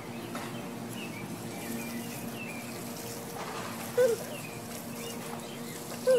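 A baby's short squeals of laughter, one about four seconds in and another at the end, over birds chirping and water trickling from a garden hose.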